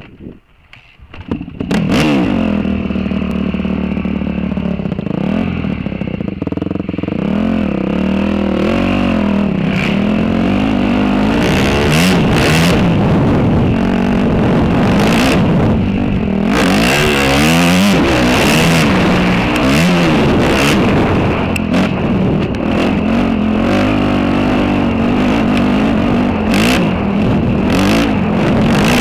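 Dirt bike engine revving up and down, its pitch rising and falling again and again as the rider accelerates, shifts and backs off along a dirt track. It comes in loud about two seconds in, with occasional short rushes of noise over it.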